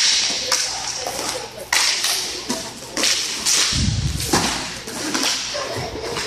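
Hockey sticks clacking against the puck and the rink floor in irregular sharp cracks, several a second at times, with a heavier dull thump about four seconds in.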